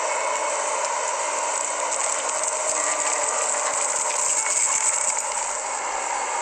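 Excavator working, with a steady mechanical clatter and rattle.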